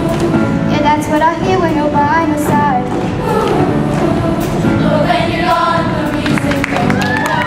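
A song performed by a group of voices over instrumental accompaniment, the melody gliding and held on long notes.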